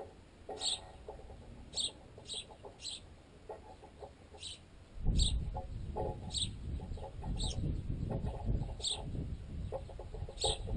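House sparrows chirping in short calls about once a second while pecking at bread wedged in a tent guy line; the pecks come through the tensioned line and tent pole as rapid clusters of ticks. About halfway through, a low irregular rumble sets in and stays loud.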